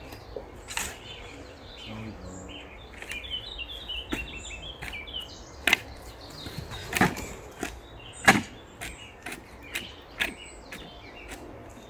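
Long-handled shovel digging into soil: an irregular run of scrapes and thuds as the blade cuts in and lifts earth, loudest past the middle. Birds chirp in the background for a couple of seconds.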